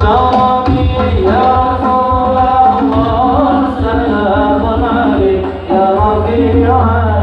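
Music: a song with a singing voice over hand-drum percussion and a steady bass.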